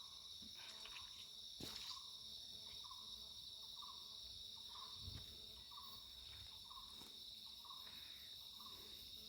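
Faint forest insect chorus: a steady high-pitched drone, with a short call repeating about every three-quarters of a second beneath it and one click about a second and a half in.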